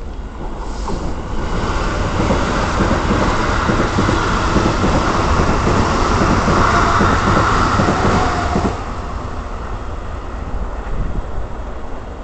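Eight-car Keikyu electric train passing through the station at speed without stopping: a loud rush of wheels on rail that builds over the first two seconds and cuts off abruptly when the last car clears, about nine seconds in, leaving a lower steady hum.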